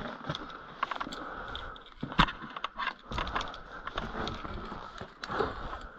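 Climbing rope being handled, with light rustling and scattered small clicks and clinks of metal climbing hardware such as carabiners. The loudest is a sharp click about two seconds in.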